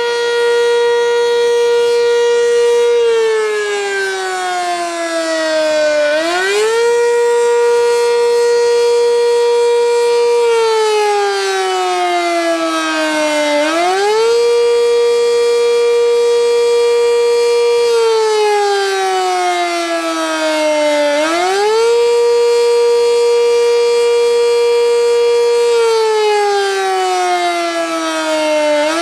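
Sentry 10V outdoor warning siren sounding a test wail. Its tone holds steady for a few seconds, slides down, then sweeps quickly back up, repeating about every seven and a half seconds.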